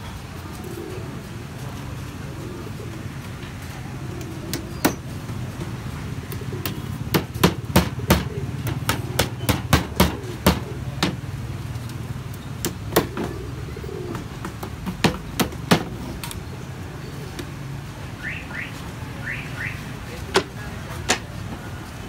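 Hammer striking nails into a pine board: sharp wooden knocks in quick runs of several strikes a second, mostly through the middle, with two more near the end.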